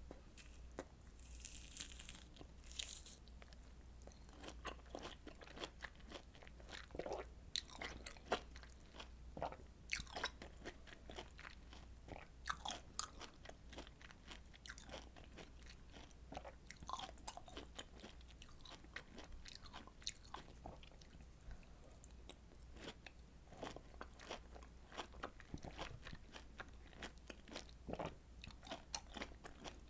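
Close-miked eating of juicy citrus fruit: many short wet bites and chewing clicks, a few each second, with a brief soft hiss about one to three seconds in.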